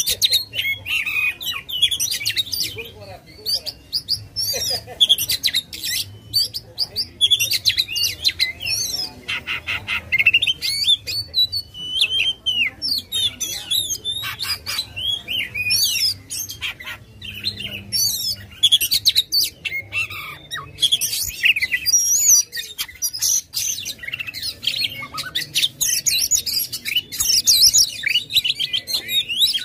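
An Oriental magpie-robin (kacer) singing without a break: a rapid, varied stream of whistles, chirps and sharp clicking notes.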